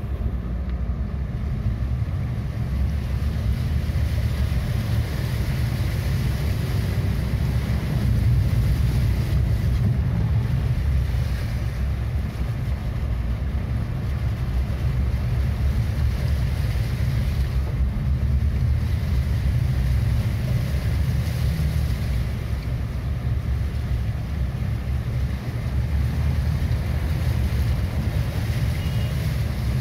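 Steady car-cabin noise from driving through standing floodwater: a low engine and road rumble with the wash of water thrown up by the tyres.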